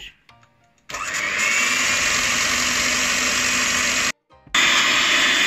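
Electric hand mixer whipping cream with icing sugar in a steel bowl. The motor whine starts about a second in, rising as it spins up, cuts out briefly just after four seconds, and comes back at a higher pitch.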